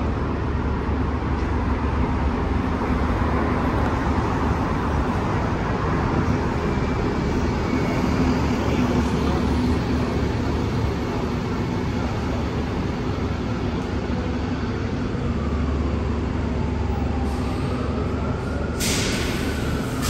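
Steady low rumble of heavy transit vehicles running, with a whine that rises and then falls in pitch over the last few seconds and a short, sharp hiss of air about a second before the end.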